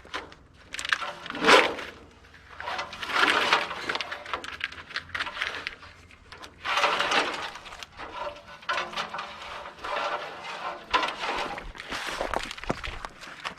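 Irregular rustling, clunks and clicks of old RV wiring and small electrical parts being handled, pulled loose and set down.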